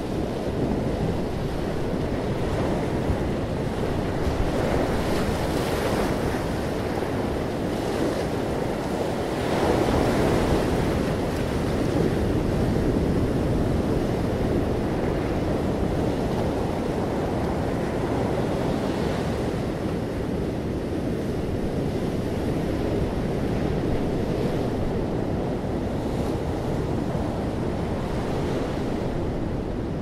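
Ocean surf breaking and washing up over sand and around rocks: a continuous rush of water that swells and eases as waves come in, loudest about a third of the way through.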